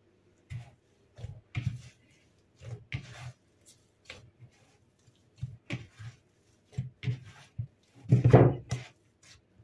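Hands kneading a stiff cookie dough in a plastic mixing bowl: irregular soft thumps and squishes, with a longer, louder thump about eight seconds in as the dough ball is lifted and pressed back into the bowl. The dough has just come together and is ready.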